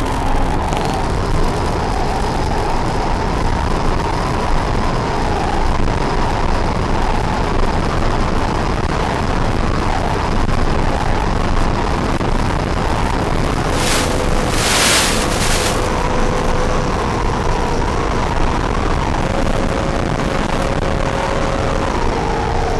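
Radio-controlled model jet in flight, heard from its on-board FPV camera: a steady rush of wind noise over a thin motor whine that shifts in pitch, with a brief louder gust of hiss about two-thirds of the way through.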